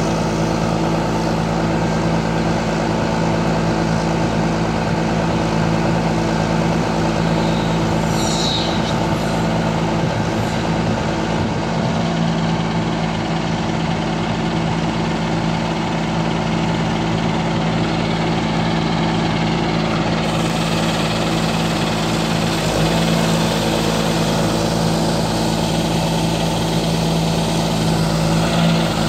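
John Deere self-propelled crop sprayer's diesel engine idling, a steady, unchanging engine note.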